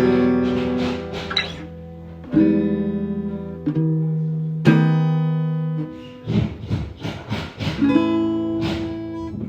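Acoustic guitar strumming chords. Each chord is left to ring and die away, and there is a run of quicker strokes about six seconds in.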